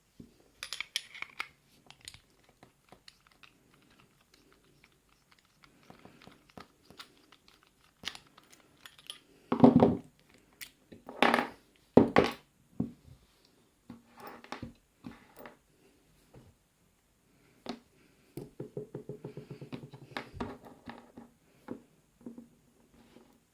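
A padlock being taken apart by hand to remove its core and pins: scattered small metallic clicks, taps and scrapes of parts and tools, with a few louder knocks about halfway through and a quick rattling run of clicks near the end.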